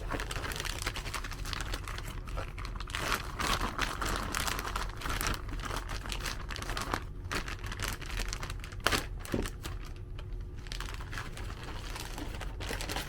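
A motherboard box being unboxed: packaging rustling and crinkling, with scattered clicks and taps of cardboard being handled.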